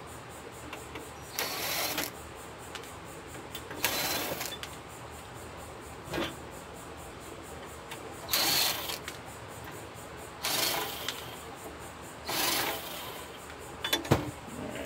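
Cordless drill/driver running in short bursts, about five times, of roughly half a second each, as it backs screws out of the mounting ears of a steel equipment chassis. A few sharp clicks come near the end.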